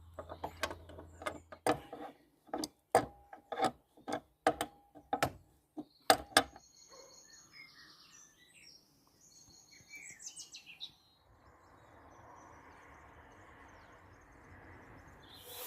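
Sharp metallic clicks and knocks, about a dozen over six seconds with a short ring, from a ratchet spanner tightening the bolts that hold down a bench vise. A few high bird chirps follow, then a soft steady hiss.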